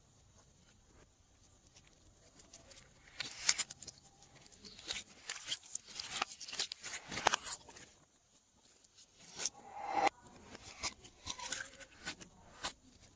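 Glossy slime being mixed by hand, making a run of sharp clicks and pops that begins about three seconds in.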